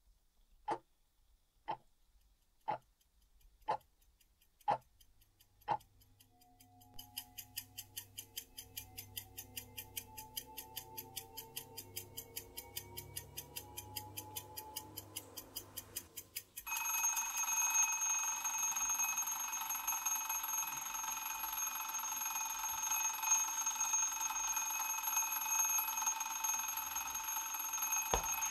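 Alarm clock ticking once a second, then quicker ticking under a slowly rising tone, then about seventeen seconds in the alarm goes off, a loud steady high ring that keeps going.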